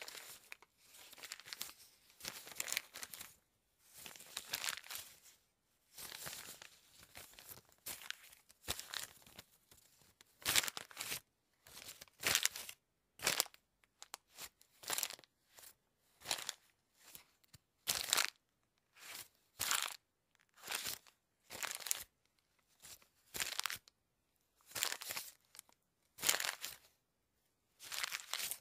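Paper being twisted and squeezed by hand: repeated bursts of crinkling and crackling, longer at first and then shorter, about one a second, with brief pauses between.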